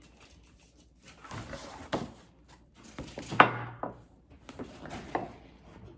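Stiff paper being handled and cut at a table: irregular rustling and snips with several knocks, the sharpest a thunk about three and a half seconds in.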